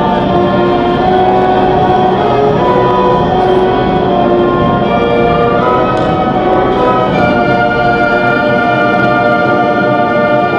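A school band playing live, brass prominent, holding sustained chords that move to new notes, most clearly about seven seconds in.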